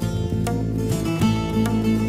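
Background music: an instrumental melody of plucked-string notes.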